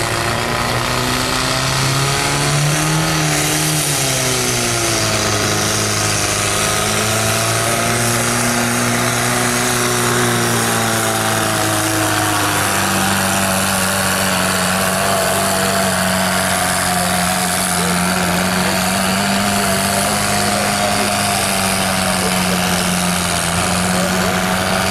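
Compact diesel pulling tractor's engine running hard under load as it drags a weight-transfer sled down the track. The engine note swells and dips through the first dozen seconds, then steps up to a steady higher pitch and holds it for the rest.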